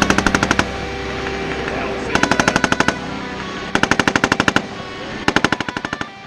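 M249 light machine gun firing four short automatic bursts of about eight to ten rounds each, one every second and a half to two seconds. A song plays steadily underneath.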